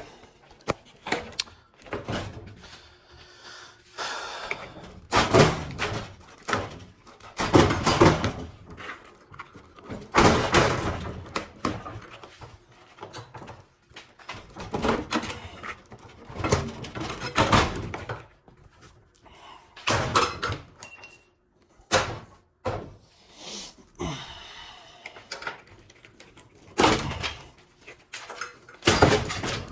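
Irregular knocks, thuds and clanks of metal parts as a tankless gas water heater is taken apart.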